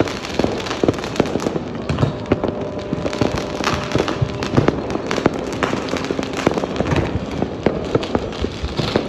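Fireworks going off in a dense, continuous barrage: sharp bangs and crackles, several a second, overlapping without a pause.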